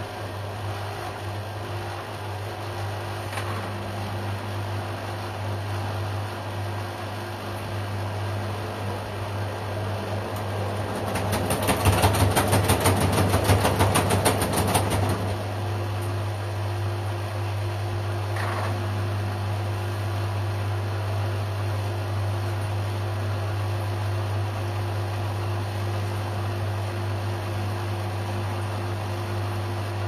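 Two LG front-loading washing machines running a wash, a steady hum with laundry tumbling in the drum. About eleven seconds in, a louder, rapidly pulsing sound lasts about four seconds, then the steady running resumes.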